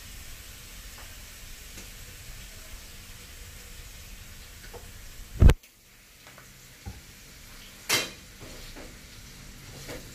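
Lemons being hand-squeezed over cut fish skin in a bowl: quiet wet handling over a steady low hum, with one sharp knock about five and a half seconds in and a short, loud scraping burst near eight seconds.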